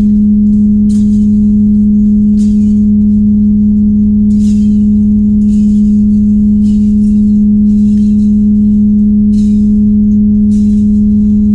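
A loud, steady low hum holds one unchanging tone. Over it come short swishing strokes about once a second, as a rag is drawn along the oily sounding tape during tank sounding.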